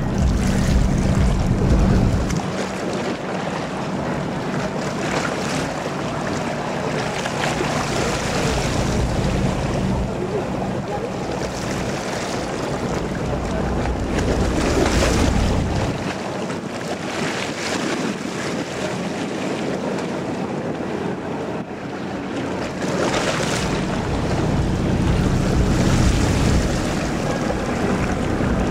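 Wind buffeting the microphone over the rush of waves and water, with a boat engine's low steady hum at times, strongest near the start and end.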